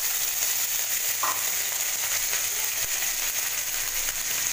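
Cumin seeds and chopped green chilli sizzling steadily in hot oil in a steel kadai, frying a tempering.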